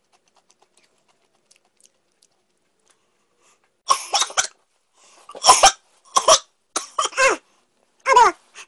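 A boy coughing and gasping hard several times in quick succession, starting about four seconds in, as the wasabi on the snack he has just eaten burns. The later coughs carry strained voiced cries. Before that there are only faint chewing ticks.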